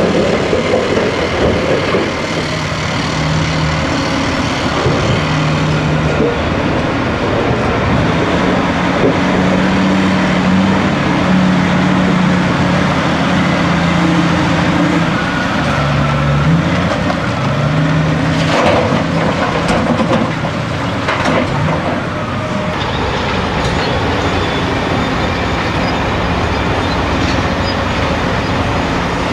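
Heavy diesel engines of Caterpillar rigid off-highway dump trucks running as they drive, the engine note stepping up and down. Two short sharp knocks come about two-thirds of the way in.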